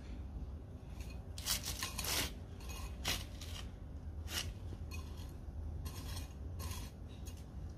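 Small hand hoe scraping and chopping through loose garden soil in a series of irregular strokes, a few of them louder.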